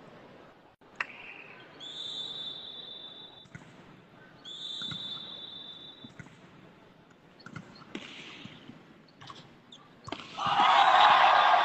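A whistle blown twice in long, steady blasts, then a few sharp ball hits of a volleyball rally. About ten seconds in, loud cheering and shouting breaks out as the point ends.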